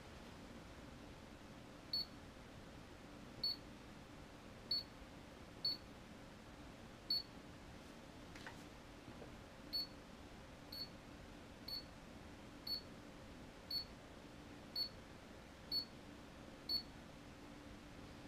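T690AC touch-screen LiPo balance charger beeping as its screen is tapped: about a dozen short, identical high beeps, roughly one a second, with a pause of a couple of seconds in the middle.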